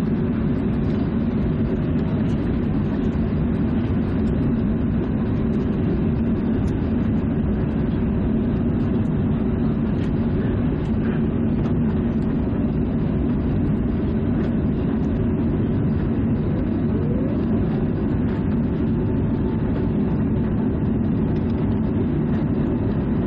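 Steady rushing hum inside the cabin of an Airbus A380 airliner, strongest in the low range and constant throughout.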